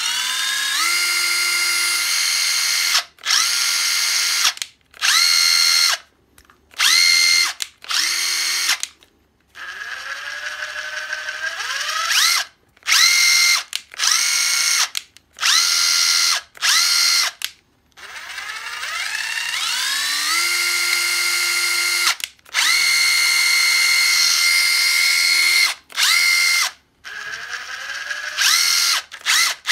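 Panasonic EZ75A7 brushless cordless impact driver spinning freely in repeated trigger pulls. Each run is a motor whine that rises in pitch as it spins up, holds steady and cuts off, lasting from under a second to several seconds, with quick short blips near the end. The driver is running normally and is still usable.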